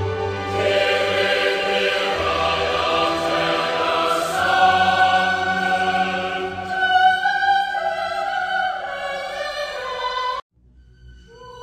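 Mournful background music with choir-like voices holding long notes. It cuts off abruptly about ten seconds in, and a new held tone swells in just before the end.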